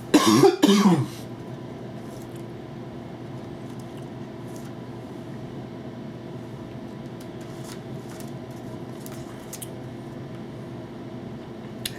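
Faint rustling and light clicks of a Blu-ray disc and its sleeve being handled, over a steady low hum. A brief louder sound comes right at the start.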